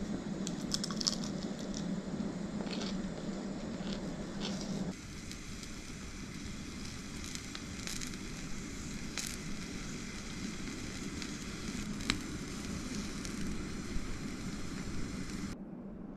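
Crisp deep-fried fish being bitten and chewed, with scattered crunchy clicks, for about five seconds. Then dried pufferfish fillets sizzle and crackle on a wire grill, an even hiss with a few sharp pops.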